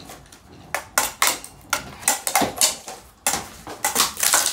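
A Lanson ceiling fan being struck and smashed: a fast, irregular run of sharp knocks and clatters, several a second.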